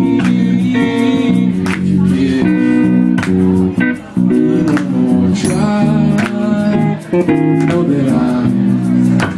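Live band music: a man singing with acoustic guitar strumming and electric bass guitar underneath, with short breaks in the sound about four and seven seconds in.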